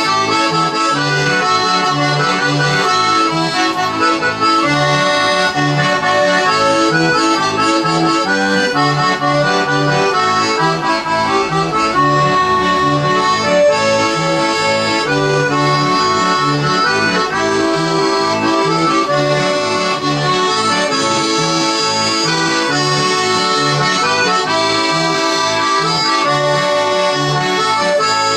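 Accordion music, sustained chords over a bass line that pulses in a steady rhythm.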